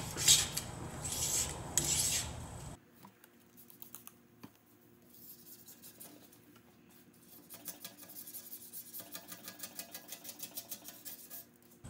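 Straight razor blade scraping cured urethane adhesive off Windex-wetted tailgate window glass, in several rasping strokes. About three seconds in it drops much quieter, and faint quick scratching strokes follow later.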